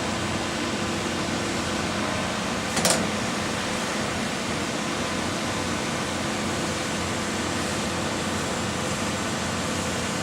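Concrete pump's engine running steadily, with one sharp knock about three seconds in.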